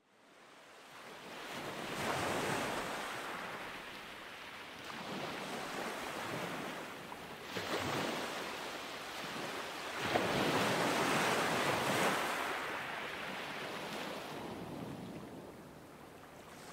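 Ocean surf sound effect: waves washing in and drawing back, swelling and ebbing in slow surges, loudest about ten seconds in and fading near the end.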